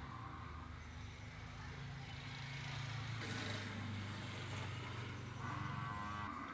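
A motor engine running with a steady low hum; a rush of hiss joins about three seconds in.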